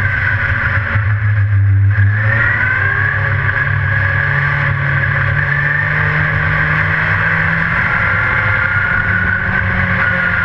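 Dirt-track race car engine running loud, heard from inside the cockpit. Its note drops about a second in, climbs again at about two seconds as the throttle comes back on, and then holds fairly steady.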